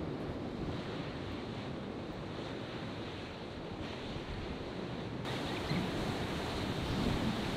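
Ocean surf washing steadily, with wind on the microphone; the sound shifts a little just past five seconds in.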